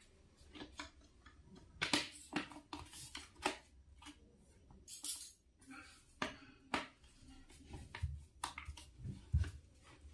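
Irregular sharp clicks and light knocks of small hard objects being handled, with a few dull low thumps near the end.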